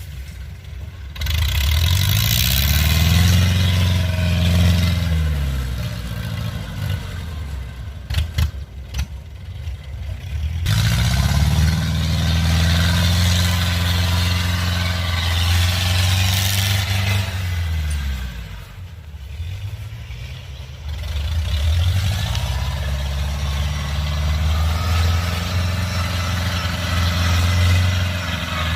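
Kubota combine harvester's diesel engine running, its pitch climbing and falling back three times as it revs up and eases off. About a third of the way in the engine sound breaks off briefly, with a few clicks.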